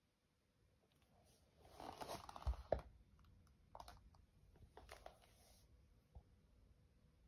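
Mostly near silence, broken by faint rustling and crunching noises between about one and three seconds in, then a few light clicks. This is handling noise from a phone being moved about close to a robot vacuum on its dock.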